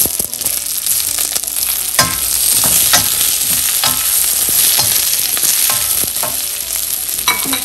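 Sliced onions sizzling in hot oil and butter with fried garlic and dried red chillies, stirred with a wooden spatula that clicks and scrapes against the pan about once a second.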